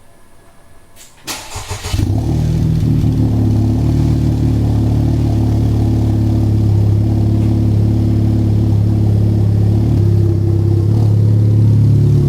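Car engine cranking and catching about a second and a half in, then idling loudly and steadily.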